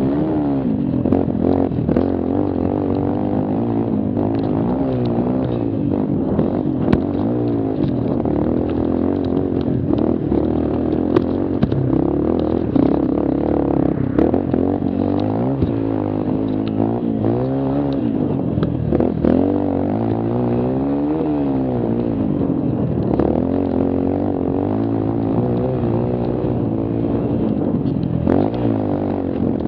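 Mini quad (small ATV) engine running under changing throttle, its pitch rising and falling again and again as the machine speeds up and slows, with scattered knocks and clatter from the quad over the bumpy trail.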